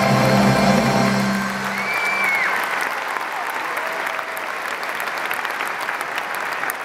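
Large theatre audience applauding. The music's held final chord ends about two seconds in, and the clapping carries on alone.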